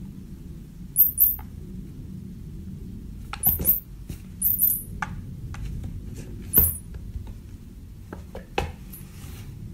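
A cat game playing on a tablet gives short, high-pitched squeaks, mostly in pairs, several times, while a cat's paws tap and bat at the glass screen.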